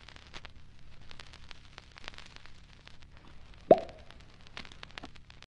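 Light crackle of scattered clicks over a low hum, with one loud pop sound effect about three and a half seconds in.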